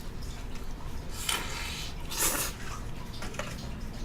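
A mouthful of ramen noodles and broth being slurped and eaten up close, with two short slurps about a second and two seconds in among small wet mouth clicks.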